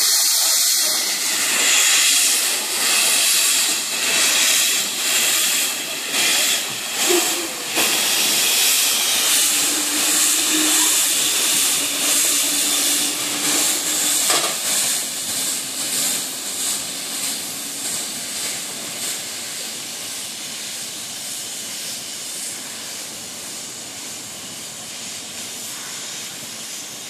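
Two narrow-gauge 2-10-2 steam tank locomotives double-heading a train away from a standstill. Steam hisses loudly from around the cylinders, with exhaust chuffs that quicken as the engines gather speed, then the whole sound fades as the train moves off.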